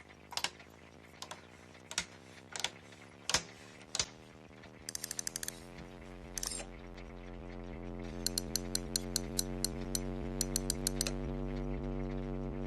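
Clockwork ticking: separate sharp ticks at uneven intervals, then a quick rattling run of clicks about five seconds in. After that a low hum rises in pitch and grows louder, then holds steady under fast, regular ticking of about five a second.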